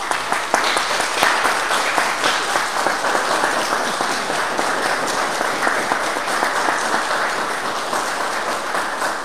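A group of people applauding: dense hand clapping that starts suddenly and keeps up steadily, easing slightly near the end.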